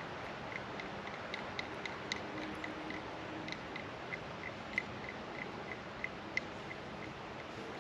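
Steady rushing of creek water, with a run of short high chirps at about four a second and a few sharp clicks.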